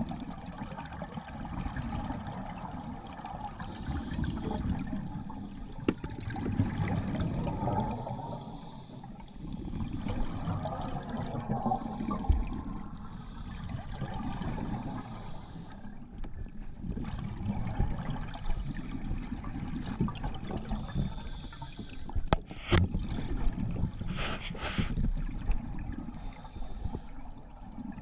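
Scuba diver breathing through a regulator, heard underwater: breaths and bubbling exhalations swell and fade every few seconds. A couple of sharp knocks come near the end.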